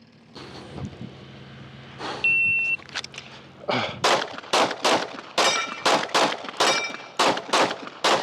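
A shot-timer beeps once, and about a second and a half later a 9mm Glock 45 pistol fires a fast string of shots, about two to three a second. Some hits ring off steel.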